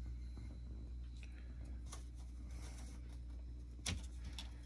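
Steady low hum with a few faint clicks and one sharper click about four seconds in.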